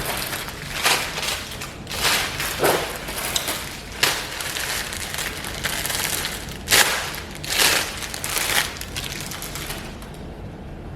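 Irregular rustling and crinkling as a bundle of kinky curly hair extensions is handled, with several louder scrunches along the way; it dies down about ten seconds in.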